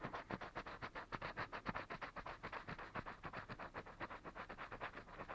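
A coin scratching the coating off a scratch-card lottery ticket in rapid, even strokes, about eight a second, uncovering the next symbol.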